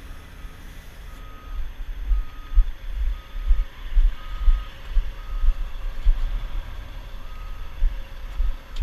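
A heavy vehicle's backup alarm beeping steadily, roughly once a second, over a low, uneven rumble.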